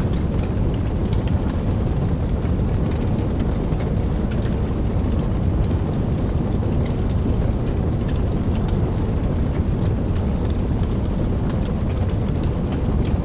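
Campfire burning: a steady low rumble of the flames with many small, soft crackles and pops scattered throughout.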